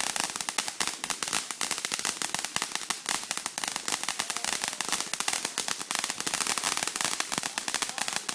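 TNT Tantrum ground fountain firework spraying sparks with a dense, continuous crackle of many sharp pops a second, holding an even level throughout.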